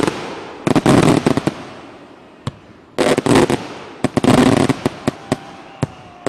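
Homemade aerial fireworks bursting: three volleys of rapid, sharp, loud cracks, with single bangs between them and the noise dying away after each volley.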